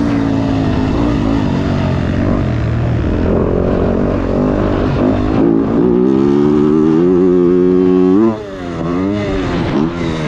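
Motocross dirt bike engine heard on board while riding: the revs climb and hold high, then the throttle shuts off suddenly about eight seconds in, followed by several quick rises and falls in revs.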